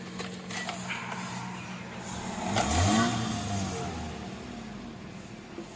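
Toyota XLi's petrol engine idling, revved once about two and a half seconds in, then settling back. It runs without misfiring now that the loose ignition coil connector on cylinder 4 is locked in place.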